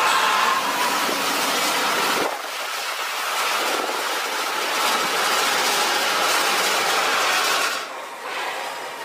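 Sapporo Municipal Subway rubber-tyred train running past on its central guide-rail track: a steady running noise with a high whine through it. The sound changes abruptly about two seconds in and falls away near the end.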